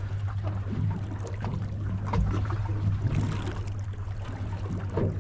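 Outboard engines idling with a steady low hum, with water lapping lightly at the hull.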